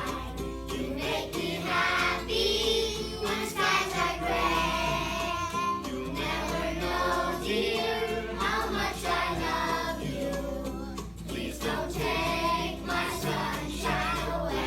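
Children's song: a group of voices singing over a musical backing with a steady bass.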